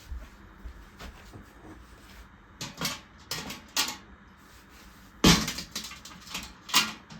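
Dishes and kitchen containers being handled: a run of separate clinks and knocks, the loudest about five seconds in.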